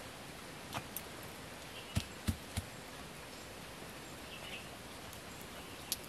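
Sharp knocks of green bamboo tubes being handled, three quick ones together about two seconds in and another near the end, over a steady outdoor hiss with a couple of faint bird chirps.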